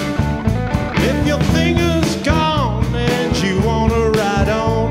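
Studio recording of a blues-rock band playing, with drums, bass and guitar. A lead line bends and slides down in pitch about two and a half seconds in, and bends again a little before the end.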